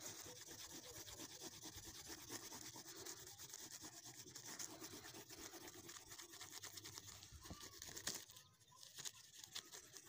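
Coloured pencil shading on paper: faint, fast, continuous scratching strokes that die down about eight seconds in.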